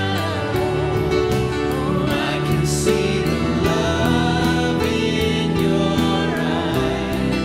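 Live worship band playing a slow Christian worship song: a voice singing over piano, guitars and drums with a steady beat.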